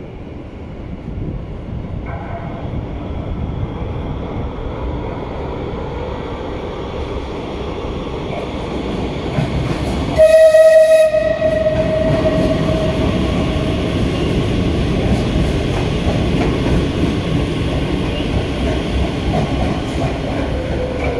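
Metro de Madrid 8000-series train running through the station without stopping, its rumble building as it approaches. About halfway through comes one loud horn blast lasting about a second, and the cars keep rolling past afterwards.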